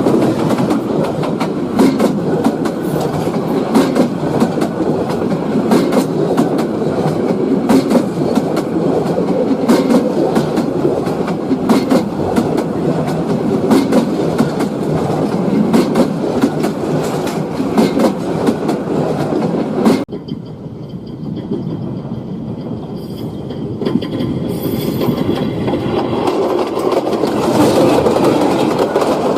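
Train running on the rails, its wheels clattering with a dense metallic clicking over the track. About two-thirds of the way through the sound drops off suddenly to a quieter, duller rumble, which then builds back up toward the end.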